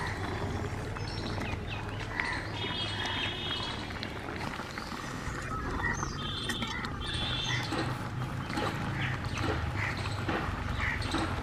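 Birds chirping, with short calls throughout and two buzzy trilling calls of about a second each, over a steady low hum.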